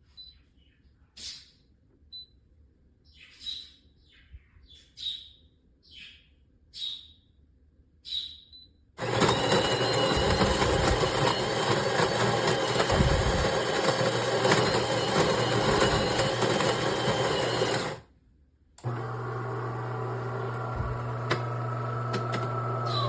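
A few short chirps, then the espresso machine's built-in burr grinder runs loud for about nine seconds and stops abruptly. After a brief pause a steady low hum follows, typical of the machine's pump during brewing, and it drops away at the end.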